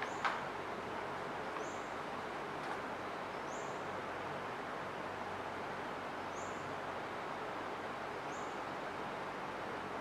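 Steady room-noise hiss, with one sharp click about a quarter second in and a faint, short high chirp recurring every second or two.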